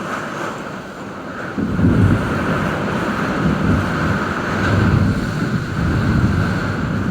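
Strong storm wind gusting and buffeting the microphone, a loud rushing that picks up about a second and a half in and keeps surging and easing.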